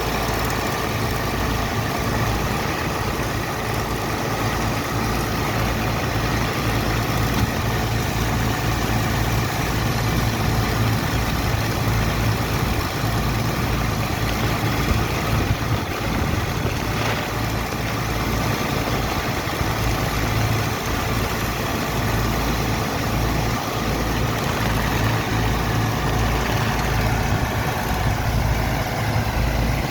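Heavy engine running steadily at a constant speed: a deep, even hum with a steady hiss over it.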